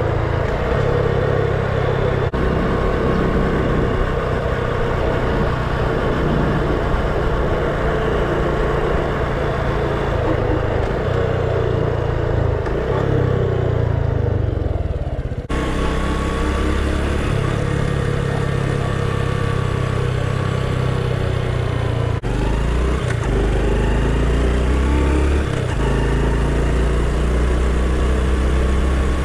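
Honda Super Cub's single-cylinder four-stroke engine running on the move, a steady engine note that falls away as the bike slows about halfway through.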